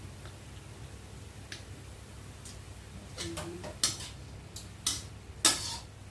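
Metal utensil clinking and scraping against a pan of stir-fried bean sprouts: a few sharp clatters in the second half, the loudest near the end with a short ring, over a steady low hum.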